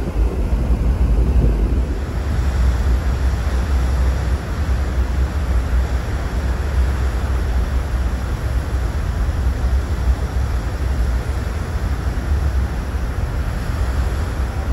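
Wind buffeting the microphone over the steady rush of sea water churning along a ferry's hull, with a constant low rumble underneath.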